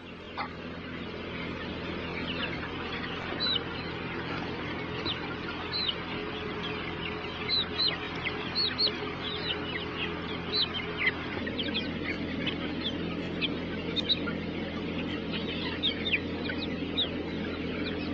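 A mass of young broiler chickens in a crowded shed: a continuous din of many birds, with frequent short, high, falling cheeps, over a steady low hum.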